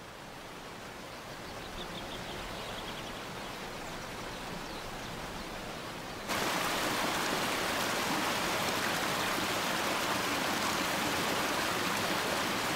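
Rushing river water, a steady hiss that fades in, then jumps abruptly louder about six seconds in.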